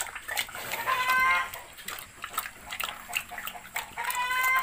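Pigs eating wet feed, with a steady run of wet chewing and smacking clicks. Two short high-pitched animal calls cut through, about a second in and again near the end.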